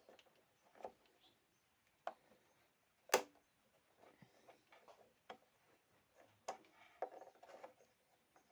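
Scattered light clicks and knocks from small objects being handled, with one sharper knock about three seconds in.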